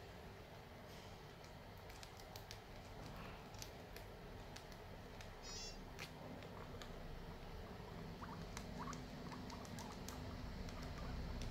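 Guinea pigs chewing and nibbling corn husk, a run of small, quick, crisp clicks and crunches.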